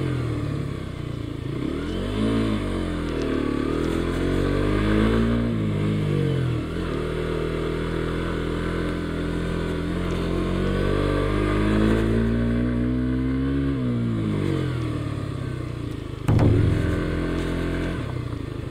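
Suzuki GSX-S125's single-cylinder four-stroke engine pulling hard up a steep climb, its revs rising and falling several times. There is a brief clatter about sixteen seconds in.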